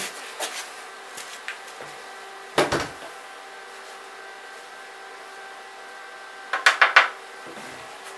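Steady hum with metal tools being handled over it: a single heavy knock about two and a half seconds in, and a quick run of four or five clacks near the end.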